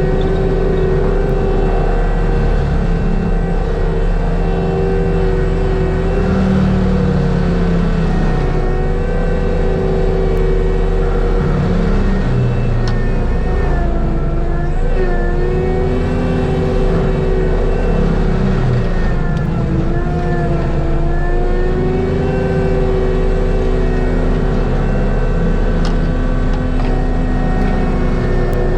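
ASV RT-120F compact track loader's diesel engine and Fecon Bullhog forestry mulcher head running hard while grinding brush. It runs steadily, and the engine note sags and recovers several times as the drum bites into thick material.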